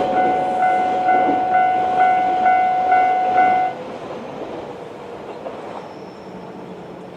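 Railway level-crossing electronic warning bell ringing in a steady repeating rhythm, about two strikes a second, then stopping abruptly about three and a half seconds in as the crossing clears. Under it the passing AN-8800 series diesel railcars fade away.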